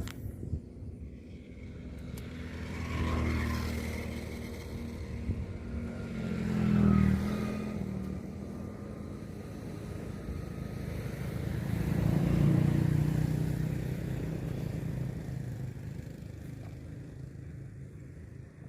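Motor vehicles passing one after another, each engine rising and fading away: three passes, the loudest about seven and twelve seconds in.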